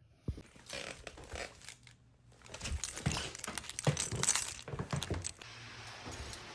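Metal clinking and rattling: many quick knocks and jangles over about five seconds. A steady hiss follows near the end.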